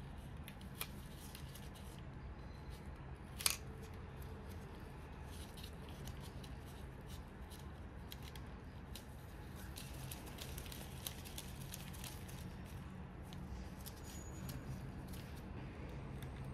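Faint clicks and scratches of small plastic parts being handled: the battery cover of a Furby clip clock being worked with a small screwdriver and pressed back into place, with one sharper click about three and a half seconds in. A steady low hum runs underneath.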